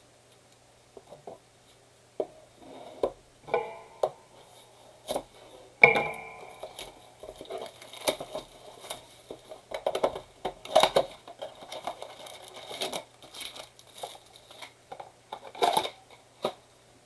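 Crinkling and tearing of plastic and cardboard packaging, with clicks of cards and box being handled, as a trading-card blaster box is readied and opened. Scattered at first, busier from about six seconds in.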